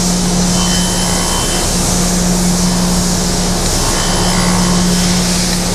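Surface grinder side-wheeling the edge of a slot in a metal block with a 60-grit, J-hardness wheel: a steady grinding hiss over the steady hum of the spindle. The wheel has just been relieved so that its corner does the cutting.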